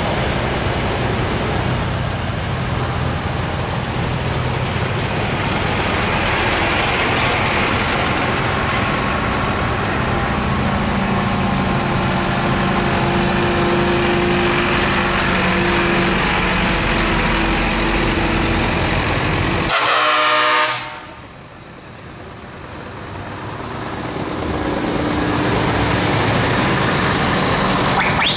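Heavy diesel trucks driving slowly past one after another, engines running steadily. About two-thirds of the way through, a truck horn gives one loud blast of about a second.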